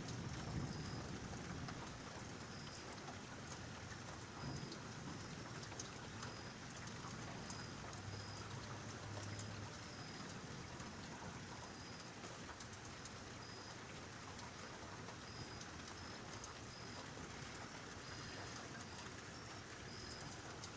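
Steady rain falling during a thunderstorm, with a low rumble of thunder dying away in the first couple of seconds.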